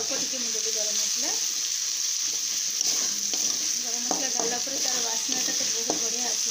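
Spiced tomato-onion masala sizzling in oil in an aluminium kadai, with a metal spatula stirring and scraping against the pan now and then. The masala is being fried until the oil separates.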